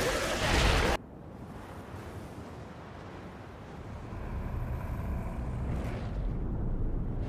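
A loud, noisy sound cuts off abruptly about a second in. A low rumble follows and swells through the second half.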